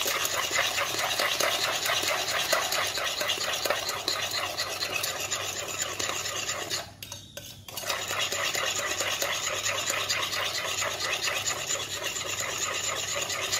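Eggs and sugar being beaten by hand with a metal spoon in a glass bowl: a fast, steady run of scraping and clinking strokes, with a short pause just before halfway.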